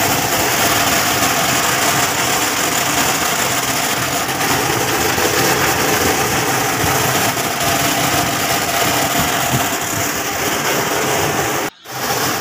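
Cashew kernel colour sorter (Sortex machine) running: a loud, steady machine noise with a faint hum and high whine, drowning out the voice. It cuts out briefly near the end.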